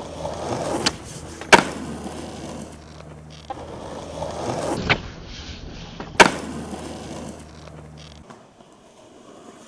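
Skateboard wheels rolling on concrete, with several sharp clacks of the board striking the ground. The loudest clacks come about a second and a half in and about six seconds in.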